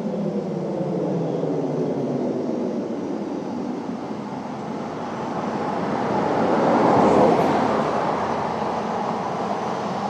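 Distant 1962 Federal Thunderbolt 1003 siren, its tone sliding down at the start. Then a broad rushing sound swells, peaks about seven seconds in and slowly fades.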